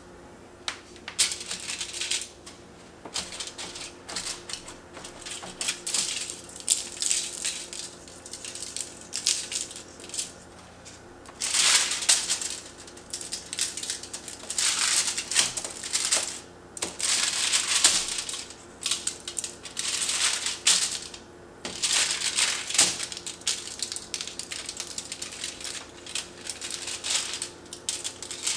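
Crumpled aluminium foil on a sheet pan crinkling and crackling as raw chicken breasts are set down and handled on it, with grains of salt sprinkled onto the chicken and foil. It comes in irregular bursts lasting a second or two each, busiest in the second half.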